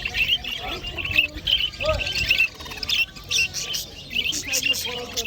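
Many small caged birds chirping at once, a dense unbroken chorus of quick high chirps.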